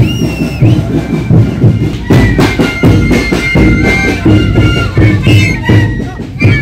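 Traditional Andean wooden flutes played by a marching troupe: several flutes sound a melody together in long held notes over a steady low drum beat.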